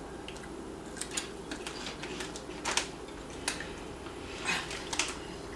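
Irregular short crunches and crackles of someone chewing crunchy puffed corn snacks (Tohato Caramel Corn), about half a dozen over a few seconds.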